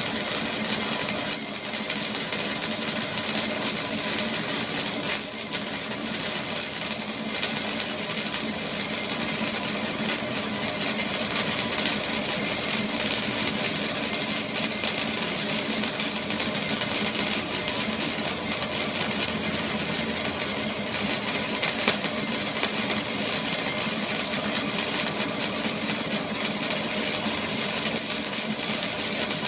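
An engine or motor running steadily and unchanging, with a low hum under a strong hissing buzz.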